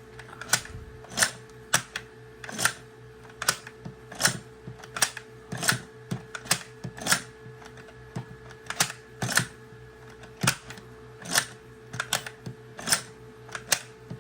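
Nerf Elite 2.0 Trailblazer's hammer-prime mechanism being pulled down and released again and again: sharp plastic clicks, about one every half to three-quarters of a second, as the barrel rotates through its firings.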